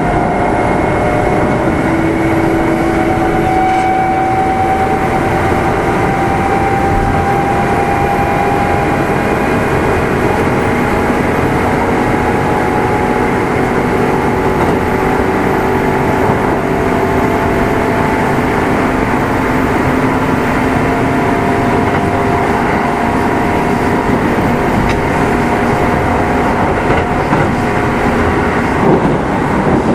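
Kintetsu 2610 series electric train running at speed, heard inside motor car Mo 2669: a steady rumble of wheels on rail under several traction motor and gear whines that hold nearly level, drifting only slightly in pitch.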